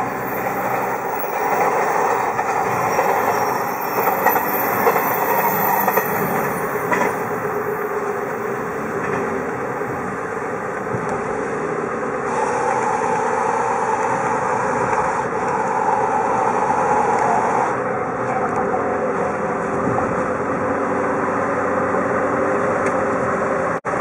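Steady vehicle running noise heard from inside a moving car: a continuous rumble and hiss from the tyres and engine.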